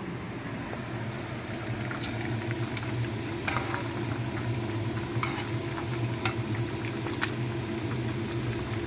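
Hot oil sizzling and crackling in a wok of deep-frying food, with a spatula stirring in the pan; sharp pops come thickly from about two seconds in. A steady low hum runs underneath.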